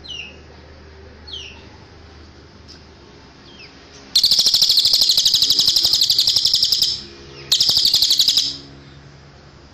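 A cililin songbird singing: a few short high falling whistles, then a loud, rapid high trill about four seconds in that lasts nearly three seconds, and a shorter trill about a second later.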